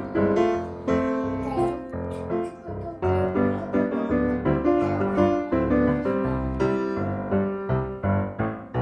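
Background music: a piano-like keyboard melody over a steady bass beat.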